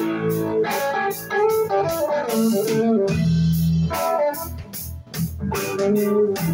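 Live blues-rock band playing an instrumental passage: electric guitar over bass and a drum kit, with regular cymbal hits that pause for about a second midway.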